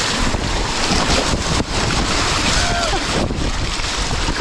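Whitewater rushing and splashing around a kayak as it runs a rapid, with wind buffeting the microphone.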